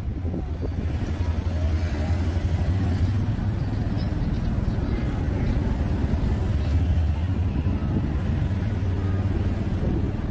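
Engine of the vehicle carrying the camera running steadily at cruising speed, a constant low hum with road and street traffic noise around it.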